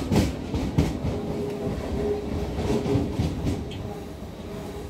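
Inside an NS Sgmm Sprinter electric multiple unit running along the track: a continuous rumble, with wheels clacking sharply over rail joints and points several times in the first second and a steady whine underneath. The sound grows quieter near the end.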